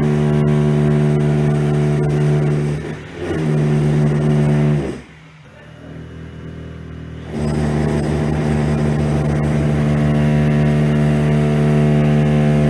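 Electric power tool motor running at a steady high speed. It briefly slows and picks up again, then winds down and stops. After a pause of a couple of seconds it starts up again and runs steadily.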